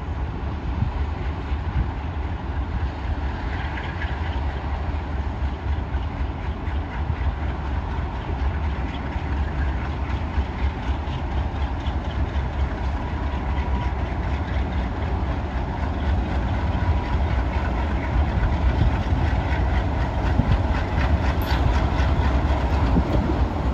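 Several Alco diesel locomotives running as they haul a freight train slowly past: a steady deep engine rumble, with wheels clicking over the rails more and more in the second half.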